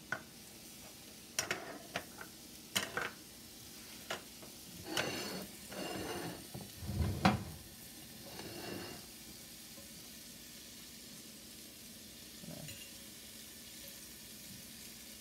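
Asparagus and cherry tomatoes sizzling in a cast iron skillet, with clinks, knocks and scrapes of utensils and dishes through the first half, the loudest a heavier knock about seven seconds in; after that only the even sizzle.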